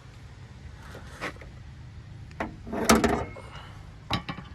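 A few light clicks, then a louder metal clunk about three seconds in and more clicks near the end: the hood of a 2002 Acura RSX being lowered and caught by its newly installed hood latch on the first-stage catch.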